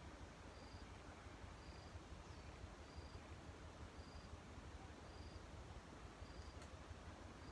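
Near silence with a faint, high-pitched insect chirp repeating evenly about once a second over a low background hiss.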